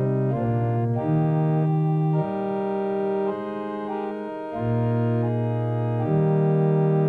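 Content Celeste 340R digital organ playing slow sustained chords on the salicional, a string stop on the swell keyboard, as a plain unison string sound without the celeste; the chord changes every second or so.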